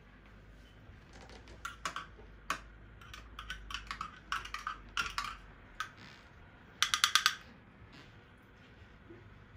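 A spoon clinking against ceramic dishes: scattered light clicks and taps, then a quick run of about six louder clicks about three-quarters of the way through.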